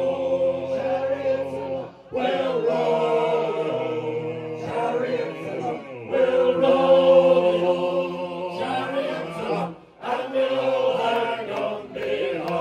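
Group of voices singing a sea shanty together in long held phrases, with short pauses between lines.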